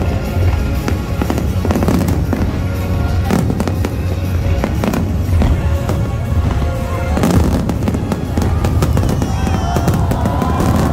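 Fireworks going off in many quick bangs and crackles over music.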